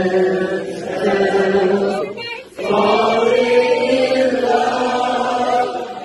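A woman sings long, held notes into a handheld microphone in a live performance, with a short break about two and a half seconds in.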